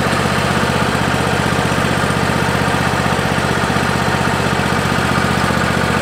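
Portable bandsaw sawmill's petrol engine running steadily at idle, with no cut under way.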